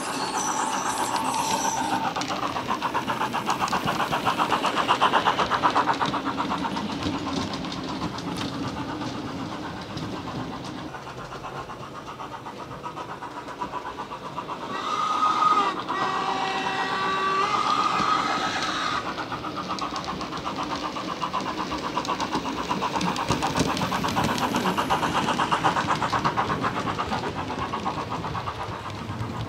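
Bachmann OO-gauge Jubilee model locomotive's DCC sound decoder playing a steam locomotive sound file through its small onboard speaker: a rapid, steady chuffing beat as the train runs. About fifteen seconds in, a whistle sounds briefly and is the loudest moment.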